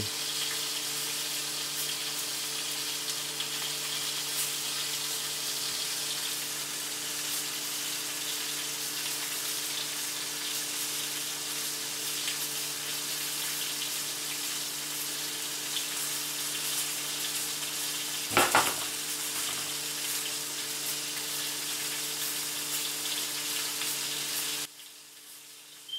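Venison steaks frying in butter in a pan: a steady sizzle with a low hum under it. A short, louder noise breaks in about three-quarters of the way through, and the sizzle cuts off suddenly near the end.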